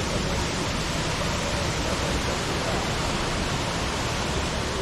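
Jungle waterfall rushing, a steady, even roar of falling water.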